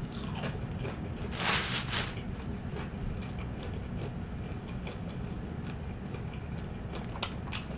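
A person chewing a mouthful of fried chicken: soft mouth sounds and a few small clicks, with a brief noisy rush about one and a half seconds in, over a steady low hum.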